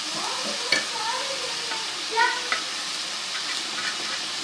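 Besan batter frying in ghee on a tawa, a steady sizzle, with a spatula clicking and scraping against the griddle a few times.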